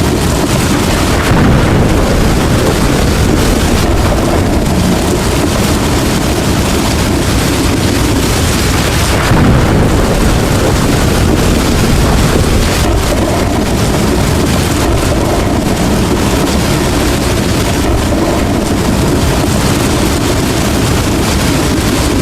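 Heavy rain falling steadily, with a deep rumble of thunder underneath that swells slightly a couple of times.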